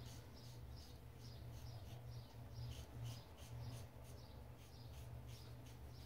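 Gem Micromatic Open Comb single-edge safety razor scraping through lathered stubble in short strokes, about two or three a second. The strokes are faint, over a steady low hum.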